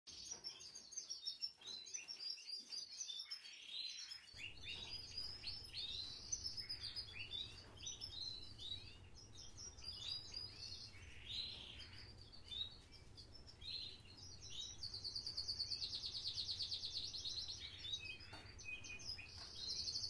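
Canaries singing: many overlapping chirps and warbles, with a long fast trill about three-quarters of the way in. A low steady hum comes in a few seconds in.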